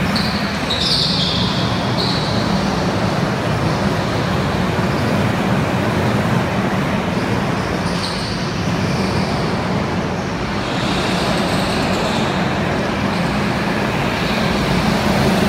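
Go-karts running on an indoor track: a steady engine drone fills the hall, with a higher whine rising over it in the first two seconds, again about halfway through and once more later as karts pass close.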